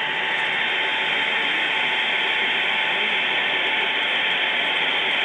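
HO-scale Union Pacific model train running on its track close by: a steady rushing, grinding noise of the running gear and drive.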